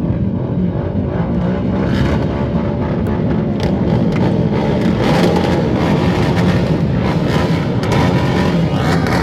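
Many quad bike engines running together on a race start line, a loud, steady, dense drone with some revving near the end.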